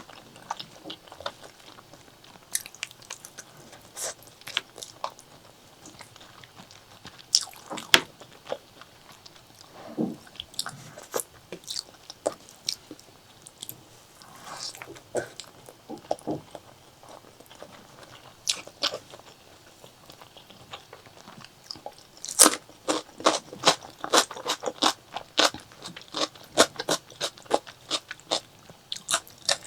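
Close-miked eating of pork leg curry and rice: wet chewing with sharp crunchy bites, sparse at first and turning into a quick run of crunching chews in the last third.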